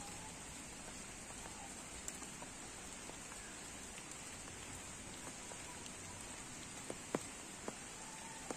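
Steady rain falling on the surface of a pond, with a few sharper single drop taps, the loudest about seven seconds in.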